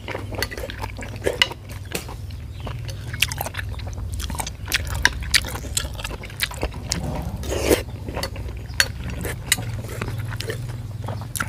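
A man chewing a mouthful of pork offal close to the microphone, with wet mouth smacks and many sharp, irregular clicks. A low steady hum runs underneath.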